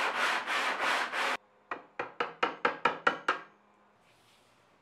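Wooden board rubbed back and forth on a sheet of sandpaper laid flat on a bench, about three strokes a second; it cuts off suddenly a little over a second in. Then a quick run of about eight sharp knocks, about five a second.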